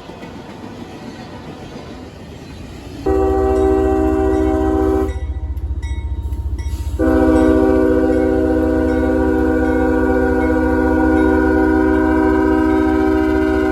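Freight locomotive's multi-chime air horn sounding a chord: a blast of about two seconds, then after a short break a long held blast, over a steady low rumble.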